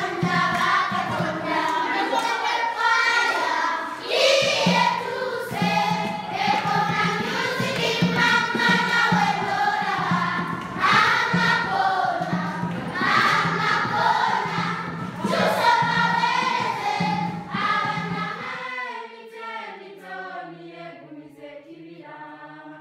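A group of children singing together. About three-quarters of the way through it turns quieter and fades away.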